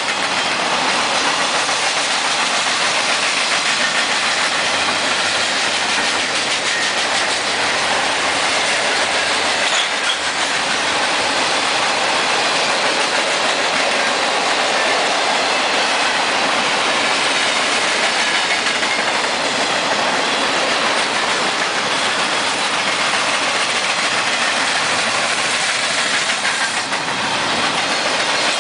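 Union Pacific freight train's cars (boxcars, covered hoppers and autoracks) rolling past on the rails: a steady noise of steel wheels, trucks and couplers.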